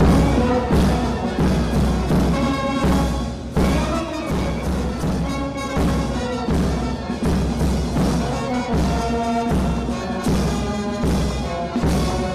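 Ceremonial band music with a steady pounding drum beat under sustained brass-like notes, as played for a police guard of honour.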